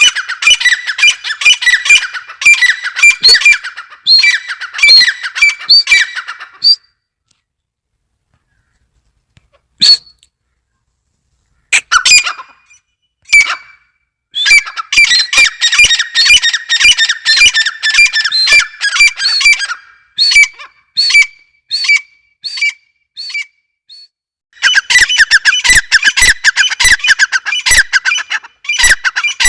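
Francolin (teetar) calling in runs of rapid, short, high squeaky notes, several a second, in bursts broken by silent pauses of a few seconds.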